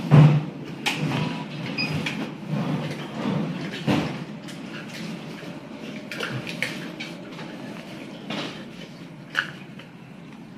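Handling noises: a heavy thump right at the start, then scattered clicks and knocks over a low background hum.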